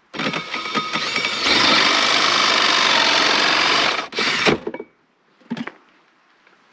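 Cordless drill boring into the cabin's wooden wall for about four seconds, running harder and steadier after the first second and a half, then stopping with a couple of short bursts. It goes in only far enough to mark the center point of the hole.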